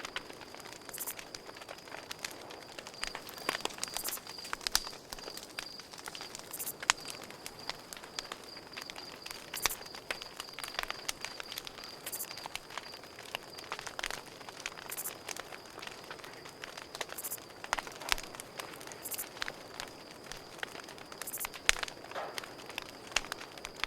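Campfire crackling with irregular sharp pops and snaps, while crickets chirp in a steady, high, pulsing trill.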